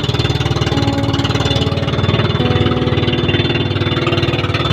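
Inboard engine of a motorized outrigger boat (bangka) running steadily at cruising speed, with a fast, even pulsing throb.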